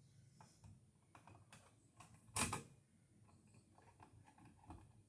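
Faint scattered clicks and light taps of hand work on small hardware, with one louder brief scrape about two and a half seconds in.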